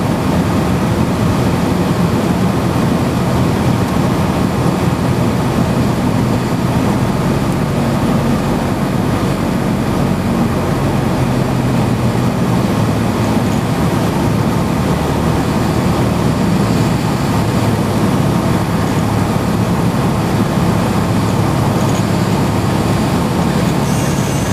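Cessna's piston engine and propeller heard inside the cockpit, a steady drone on final approach. Right at the end a high, reedy tone rises in, typical of the stall warning horn sounding as the plane flares over the runway.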